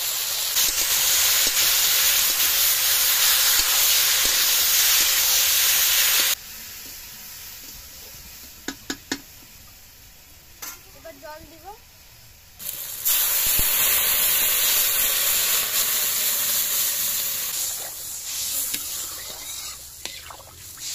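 Vegetables sizzling in hot oil in an iron wok, a loud, steady hiss. It drops away for several seconds in the middle, where a few sharp knocks are heard, then the sizzling returns and slowly fades.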